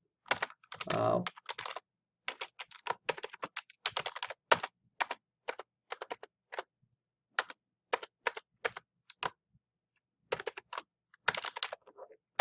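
Typing on a computer keyboard: quick runs of key clicks with short pauses between words.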